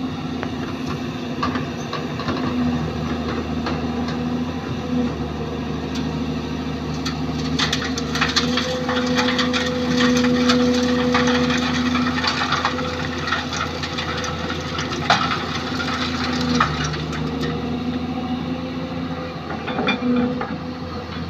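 Kobelco hydraulic excavator's diesel engine running steadily, its tone louder for several seconds while the loaded bucket is emptied. From about seven seconds in, sand pours from the bucket onto a steel mesh screen over a dump truck's bed, a rattling hiss that lasts about five seconds, with a few sharp knocks later.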